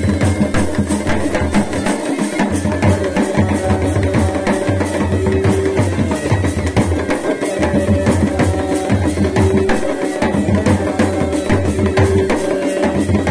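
Chholiya band music: a dhol beating a fast, steady rhythm, with a masakbeen (Kumaoni bagpipe) playing held melody notes over a continuous drone.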